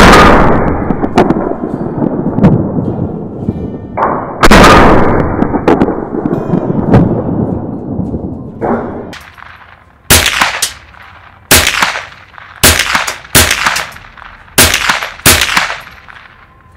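Gunshots. Two very loud shots with long rolling echoes come in the first five seconds, and another follows at about eight and a half seconds. Then a quicker string of about eight sharper, shorter shots comes roughly every half second to second: a Marlin Model 60 semi-automatic .22 LR rifle being fired at targets.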